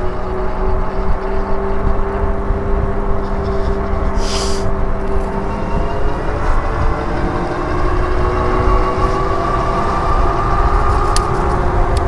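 Riding a Super73 electric fatbike: wind rushing over the microphone, with a steady whine from the motor and fat tyres that rises in pitch after about six seconds as the bike speeds up.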